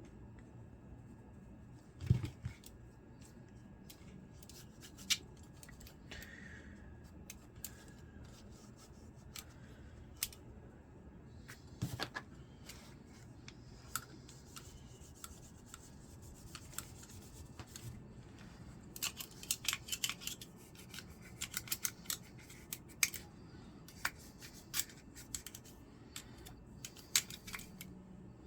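Light clicks, taps and scratchy scrubbing of SCCY CPX-2 pistol parts and cleaning tools being worked on to clear out dirt and carbon buildup, with two light knocks and a fast run of scratchy clicks in the second half.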